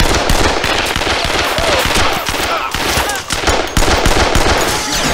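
Sustained rapid machine-gun fire: a dense, unbroken string of shots.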